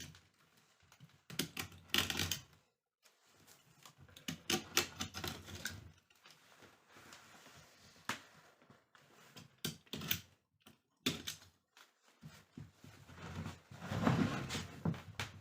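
Hand work on a rattan chair: irregular clusters of small clicks and taps with short stretches of scraping and rustling, the loudest burst near the end.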